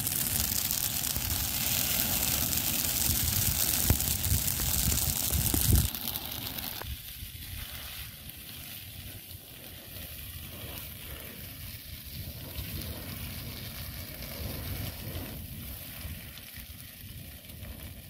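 Wildfire burning through scrub and trees, crackling and hissing. A loud rushing noise for about the first six seconds cuts off suddenly to a quieter crackle.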